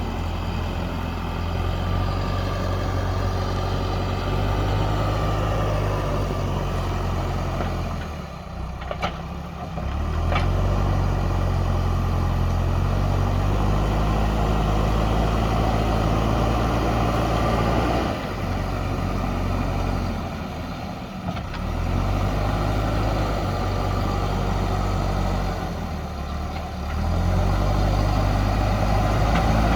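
JCB backhoe loader's diesel engine working under load, its note dropping away and picking back up several times as the machine works.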